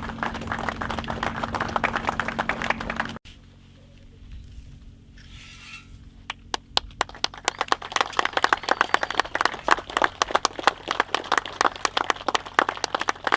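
Crowd applauding, with a steady hum under the first round. The applause breaks off abruptly about three seconds in, and a second, louder round of applause starts about six and a half seconds in.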